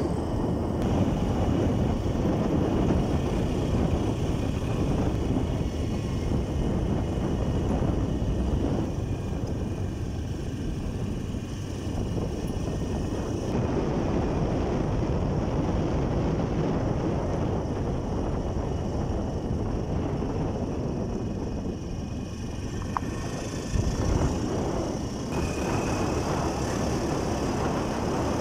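Motorcycle being ridden along a road: a steady rush of engine and road noise, with a brief low thump a few seconds before the end.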